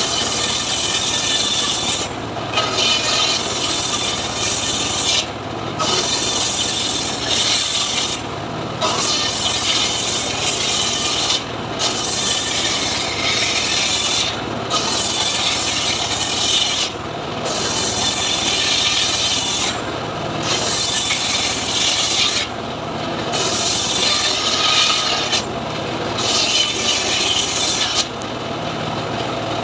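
Homemade engine-driven circular saw cross-cutting lamtoro (leucaena) logs into short lengths, one cut after another about every three seconds, each cut a loud rasping hiss over the steady running of the machine.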